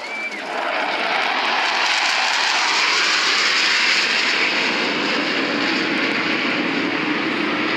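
Jet engine noise of F-16 fighters flying past, building up over the first second and then staying loud and steady.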